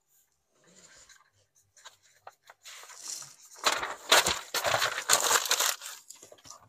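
Marker and pencil scribbling on paper, with paper rustling: a few light scratches at first, then about two seconds of loud, rapid scribbling in the middle.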